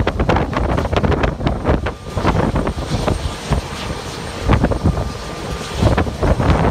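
Gusty wind buffeting the microphone over the steady hum of jet engines from an airliner taxiing on the ramp, with a faint high whine in the middle.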